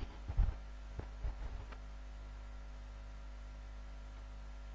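Room tone: a steady low electrical hum, with a few faint knocks and taps in the first two seconds.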